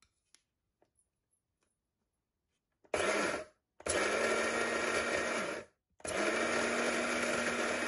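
Electric blade spice grinder starting about three seconds in, pulsed on and off: a short burst, a run of about two seconds, then running steadily with a constant motor hum as it grinds lightly roasted whole spices into powder.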